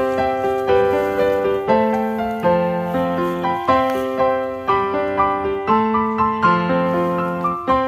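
Background piano music: a gentle melody of repeated notes at an even pace.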